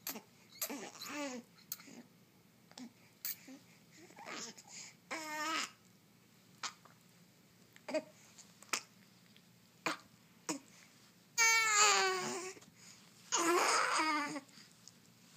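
A baby making funny vocal noises while feeding: short squeaks and hums, with sharp little clicks between them. Near the end come two longer, louder vocalizations.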